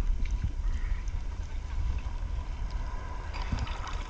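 Ocean surf and wind buffeting the microphone: a steady low rumble with a faint hiss of moving water.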